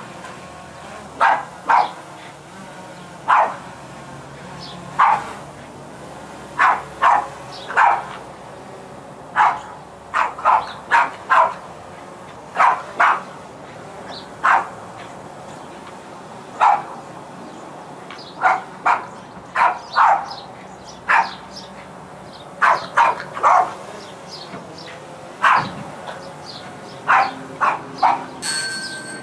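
Boston Terrier barking over and over, short sharp barks coming singly or in quick runs of two or three at uneven gaps.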